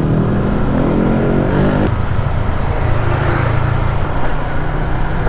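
Motorcycle engine running while riding, under wind and road noise. Its note climbs for about two seconds, then drops suddenly and runs steadier.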